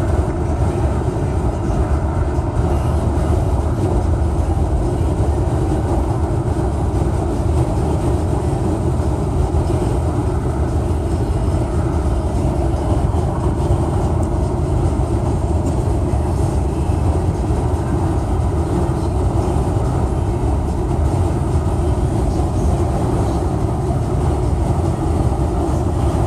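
Steady low rumbling noise, like a ride inside a moving vehicle, with no breaks or changes.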